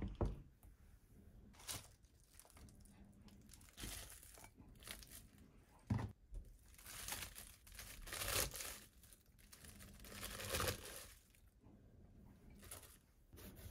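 Crisp rustling and crinkling of chopped cabbage leaves as they are handled and pushed by hand into a glass bowl, in irregular bursts. There is a sharp knock at the start and another about six seconds in.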